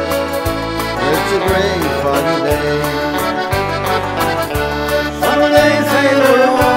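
Instrumental break in a traditional-style folk song: a button accordion plays the melody over a steady bass line and regular drum beats.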